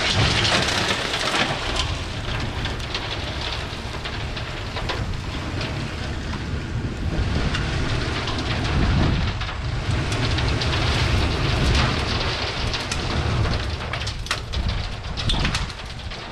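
Gravel pouring and sliding out of a dump trailer's open tailgate as the trailer moves along, a steady rushing rattle of stones over a low rumble, the gate spreading the gravel out as it drags over it.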